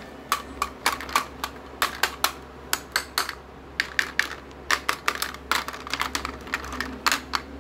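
Plastic toy knives tapping and clacking against plastic play food and a plastic tray: an irregular run of sharp clicks, several a second, with a short lull midway.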